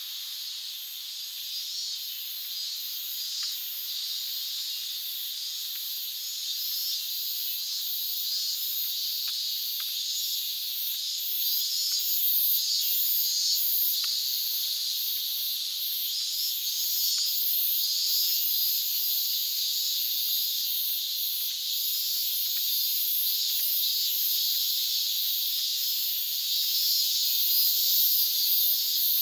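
A chorus of cicadas buzzing steadily, high-pitched with a fast flickering shimmer at the top, growing somewhat louder partway through.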